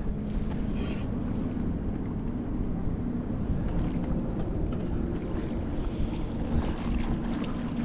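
Steady wind and water noise around a fishing kayak on choppy open water, with a faint steady low hum underneath.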